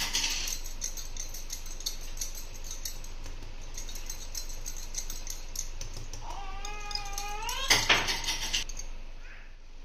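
Wire whisk clicking and scraping against a glass bowl as melted butter and powdered sugar are beaten together, with a louder flurry of strokes about eight seconds in. A cat meows once, a rising call of about a second and a half, just before it.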